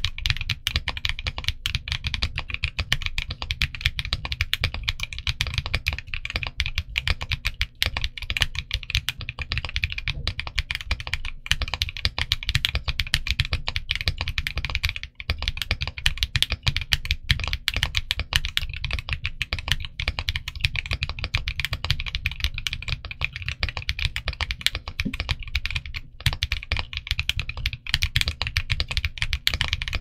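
TG67 V3 mechanical keyboard with Salmon tactile switches and Toffee Bunny PBT keycaps typed on quickly and continuously: a dense stream of keystrokes, with one momentary break about halfway through.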